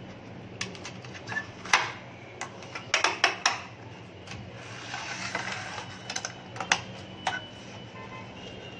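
Plastic Hot Wheels track pieces being handled and fitted together: a run of irregular sharp clicks and knocks, with a brief rustle about halfway through.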